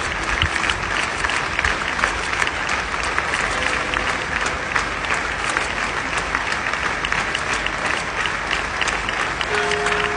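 A large crowd applauding steadily: many hands clapping in a dense, even patter.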